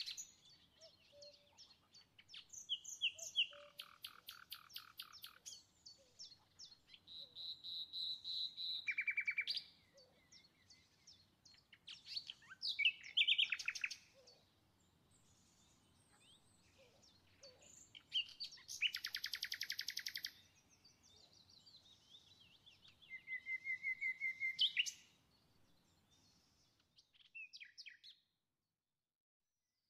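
A songbird singing phrases of very fast trills and chirps, a few seconds apart with short pauses between. The sound cuts off completely near the end.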